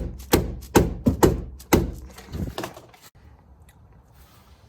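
Rubber mallet striking the steering knuckle at the bottom of a front strut: about six quick blows in under two seconds, then a few lighter knocks, then it stops. The knuckle is seized on the strut and is not yet being driven down.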